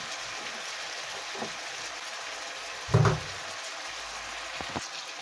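Chicken pieces sizzling steadily in butter and vegetable oil in a frying pan, with one dull knock about three seconds in and a few faint clicks.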